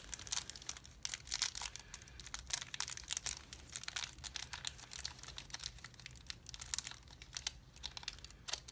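Thin padlock shims and their packet being handled, crinkling and rustling in a steady run of quick crackles. The shim stock is flimsy, like aluminum foil.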